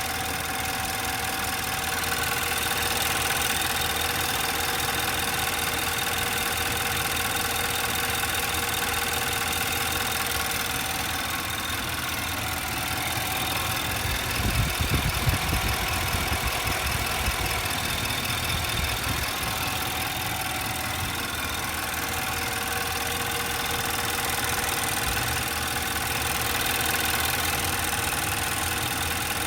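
2012 Infiniti QX56's 5.6-litre V8 idling steadily with a whining, rattly timing chain noise. A few low bumps come about halfway through.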